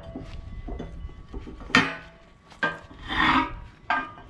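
Two steel dozer cutting-edge plates, one worn and one new, knocking and scraping against each other as they are handled and laid together: a sharp knock, a scrape lasting about a second, then another short knock.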